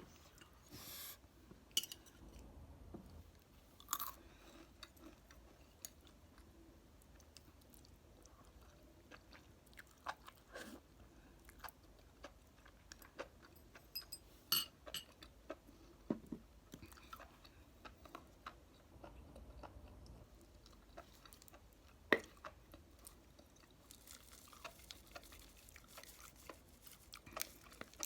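A person chewing and eating, quiet and close to the microphone, with many small scattered mouth clicks and a few sharper crunchy bites.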